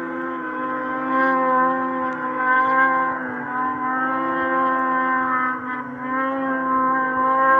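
Snowmobile engine running hard at high revs, a steady high-pitched drone whose pitch sags briefly twice as the sled climbs a steep snow chute.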